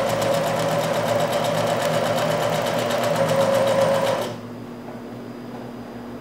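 Singer electric sewing machine stitching at a fast, even rate through layered cotton dish-towel fabric, then stopping abruptly about four seconds in.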